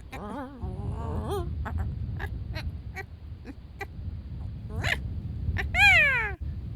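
High, meow-like animal calls: wavering calls about half a second in, then one strong call that falls steeply in pitch near the end. Scattered light clicks and a low steady rumble run underneath.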